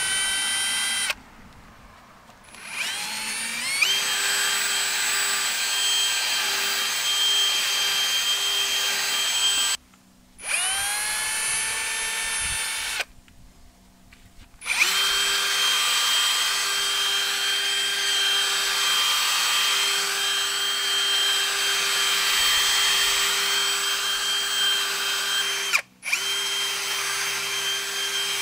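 Ryobi 18V brushless cordless drill spinning a foam polishing pad against a boat's gelcoat hull, buffing in rubbing compound. The motor whine runs steadily, stops and spins back up with a rising pitch three times, cutting out briefly about a second in, about ten seconds in and about thirteen seconds in.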